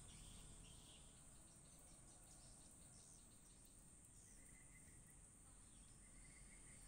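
Near silence, with a faint, steady, high-pitched insect drone like crickets and a couple of faint short trills in the second half.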